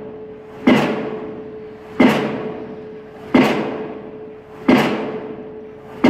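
Diesel impact pile hammer on a crane-hung leader driving a steel pile: heavy blows about every 1.3 seconds, four in the span, each ringing away slowly, with a steady tone underneath.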